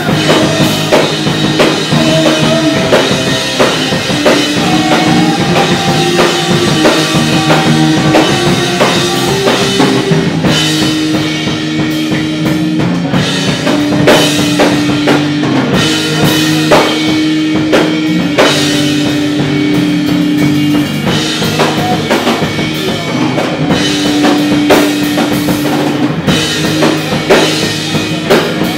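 Melodic hardcore band playing live: electric guitar, bass and a drum kit, with long held notes over dense, steady drumming.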